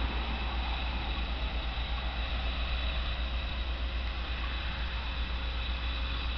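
Steady low rumble with an even hiss, with no distinct event in it.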